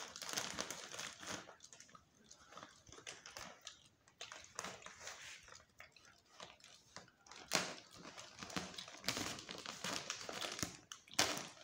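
Plastic postal mailer bag rustling and crinkling as hands handle and press on it, with a couple of sharper, louder crackles about two-thirds through and near the end.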